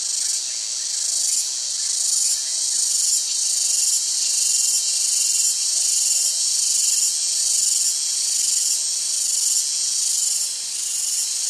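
Shrill, steady insect buzzing, high-pitched, swelling slightly a little more than once a second.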